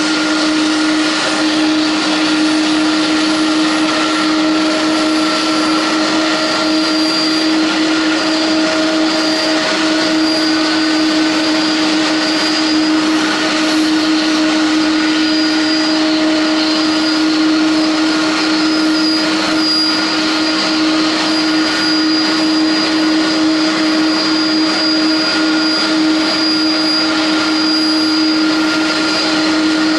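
Airliner turbines running steadily on the apron: a loud, even rush with a constant low hum and fainter high steady tones above it.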